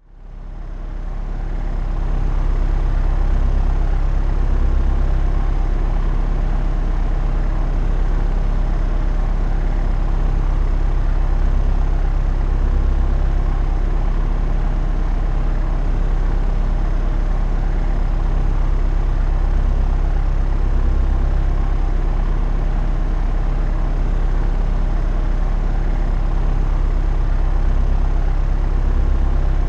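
Propeller aeroplane's engine droning steadily in flight, a deep even hum with a low throb. It fades in over the first couple of seconds.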